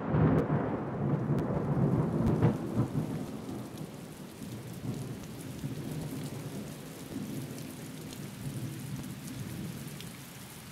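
Thunder rumbling over steady rain. The rumble is loudest at the start and dies away over the first few seconds, leaving the rain.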